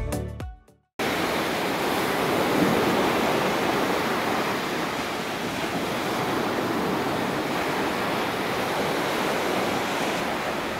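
Music fades out in the first second, then after a cut, steady surf wash from small waves breaking on a sandy beach.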